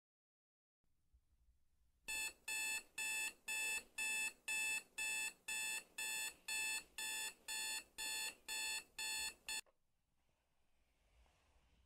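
Bedside alarm clock going off: a run of identical high beeps, about two a second, starting about two seconds in and then stopping abruptly as it is switched off.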